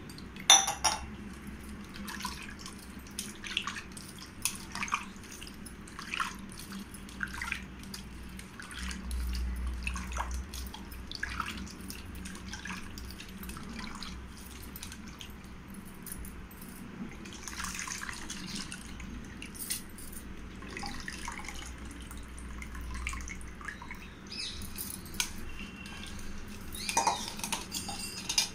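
Soaked tamarind being squeezed and worked by hand in water in a steel bowl: irregular wet squelching, splashing and dripping as the tamarind water is pressed out, with louder splashes just after the start and near the end.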